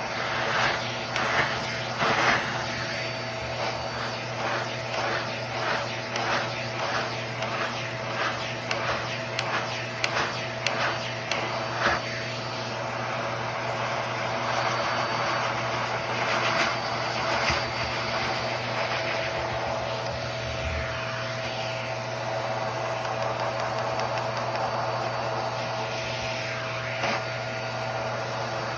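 Vacuum cleaner running steadily with a constant hum and hiss. For several seconds in the first half a run of even strokes, about two a second, sounds over it.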